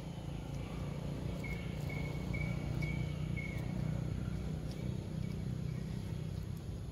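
Outdoor ambience: a steady low rumble, with a run of about five short, high, evenly spaced chirps about a second and a half in, and a few faint clicks.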